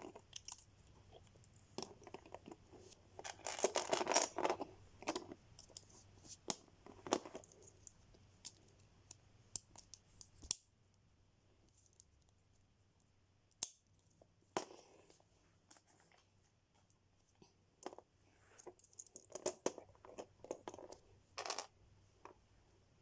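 Hands handling Lego pieces and packaging: scattered plastic clicks and taps, with two bursts of rustling about three seconds in and again near the end.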